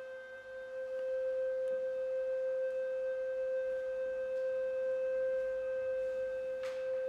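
A single steady pure tone held at one pitch, with faint higher overtones, like a sine wave or tuning fork. A brief hiss comes near the end.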